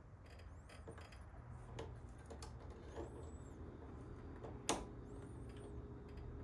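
Hand tools clicking and scraping on metal while working a stubborn brake pad retaining pin out of a motorcycle's rear brake caliper, with faint squeaks and one sharper click about three-quarters of the way through.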